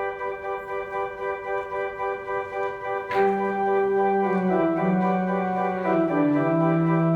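Church organ postlude: it begins on a held chord whose loudness wavers, then about three seconds in a bass line comes in louder and the chords start to move.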